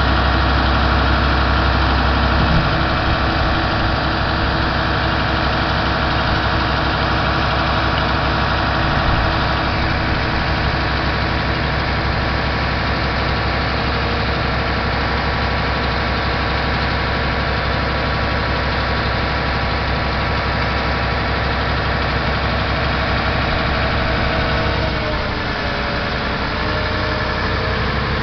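Mercedes-Benz Actros 3236 truck's diesel engine running steadily. Its low tone drops about two and a half seconds in, and near the end the engine speed dips briefly and settles on a different note.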